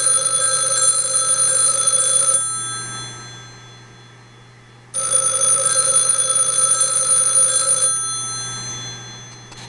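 Stromberg-Carlson 500D rotary phone's bells ringing: two rings of about three seconds each, about five seconds apart, each fading away after it stops. It is driven by a home ringing setup rather than the phone line and sounds funky because of that ringer.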